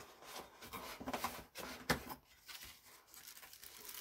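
Packaging crinkling and rustling as a plate is unwrapped by hand, with a sharp tap about two seconds in.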